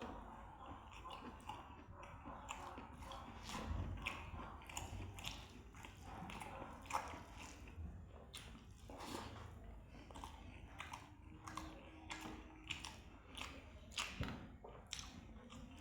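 A person chewing a mouthful of food close to the microphone: a steady, irregular run of short wet mouth clicks with a few crunches.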